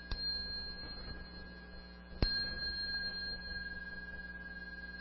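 A small bell struck three times, about two and a half seconds apart: at the start, a little over two seconds in, and once more at the end, each strike ringing on with high, steady tones. The strikes mark the three half bows to the Buddha that close a Buddhist session.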